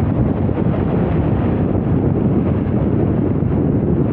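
Steady, loud wind buffeting the microphone, a continuous low rumbling noise without any clear engine tone.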